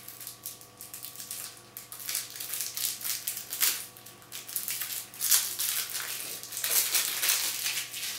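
Plastic wrapping on a new deck of game cards crinkling and crackling irregularly as it is picked open by hand.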